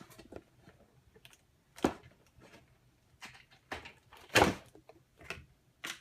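Shopkins playset box being handled and opened: irregular knocks and scrapes of cardboard and plastic packaging, the loudest a little past four seconds in.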